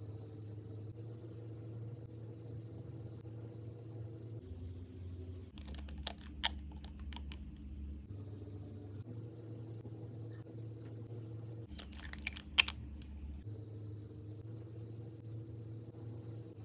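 Long nails and a small glass nail-polish bottle clicking as they are handled, in two short clusters of sharp taps about six and twelve seconds in, the last tap the loudest. Under the taps runs a low steady drone that shifts pitch every second or two.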